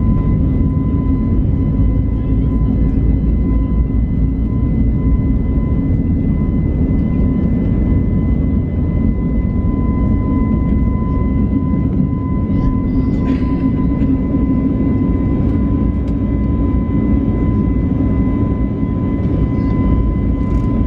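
Airbus A321neo cabin noise in the climb after takeoff: a steady low roar of the jet engines and airflow with a thin steady whine above it. A few faint clicks come about two-thirds of the way through and near the end.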